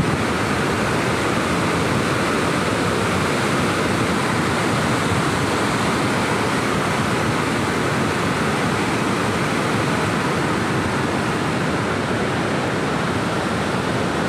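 Steady rushing of a river in heavy flood pouring past a barrage, the fast, muddy water churning in high, breaking waves.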